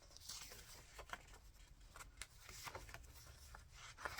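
Faint rustling and light taps of paper and card being handled and slid into place in a handmade journal.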